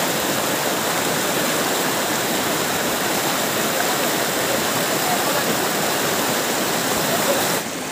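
Fast, shallow rocky river rushing over stones in a steady, loud rush of water. The rush drops a little in level near the end.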